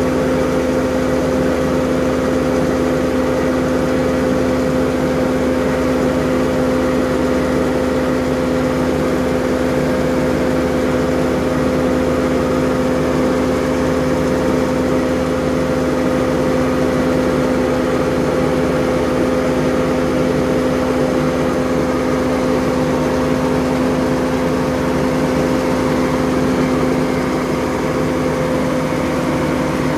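Grain auger and the engine driving it running steadily with a constant hum as wheat is augered out of a truck trailer.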